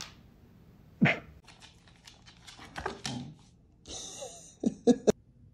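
Husky giving 'silent barks': short, breathy huffs with little voice behind them. One comes about a second in, a couple more around three seconds, and a quick run of three near the end.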